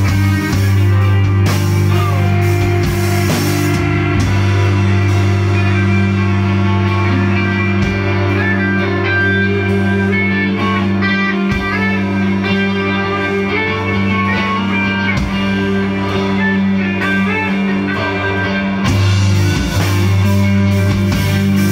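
Rock band playing an instrumental passage: several electric guitars over a steady low bass note, with drums.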